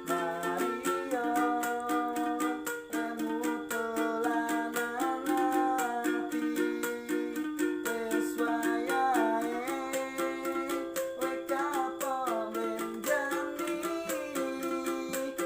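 Busker's music: a small string instrument strummed in a fast, even rhythm, with a voice singing a wavering melody over it.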